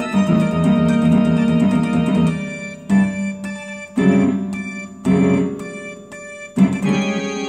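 Chords played on a harmony array keyboard driving an electronic keyboard's voice: a held chord passage first, then separate chords struck about a second apart, each fading before the next.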